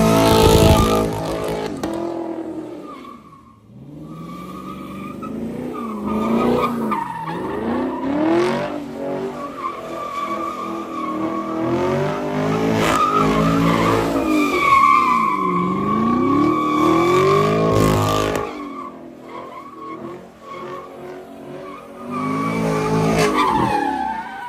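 Car doing donuts: its engine revs up and down over and over while the tyres squeal in long stretches. The squeal is strongest from about six to eighteen seconds in, with a short lull about three seconds in.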